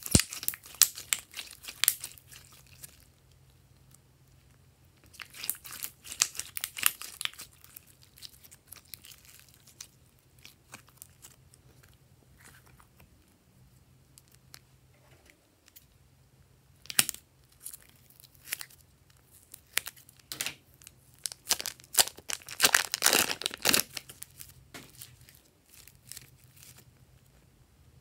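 Glossy slime squeezed and pressed by hand, making bursts of sticky crackling and popping. The bursts come at the start, again about five seconds in, and most densely a little past twenty seconds, with quiet stretches between.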